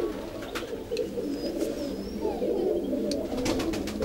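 A flock of domestic pigeons cooing together in a loft, many overlapping low coos, with a few sharp clicks and a short high chirp among them.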